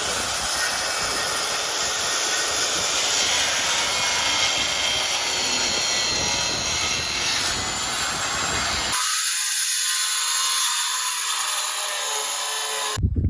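Power saw cutting through a sheet of plywood, running steadily. The sound thins out about nine seconds in and cuts off suddenly near the end.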